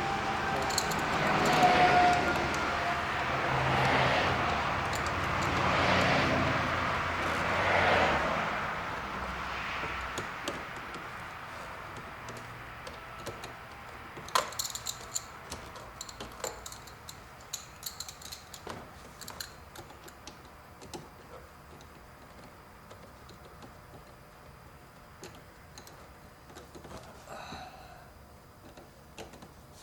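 Hand work on the Torx screws holding a car's instrument cluster at the bottom corners of the dash. Rustling rises and falls four times, about two seconds apart, then gives way to scattered light clicks and small metal ticks, with one sharp click about halfway through.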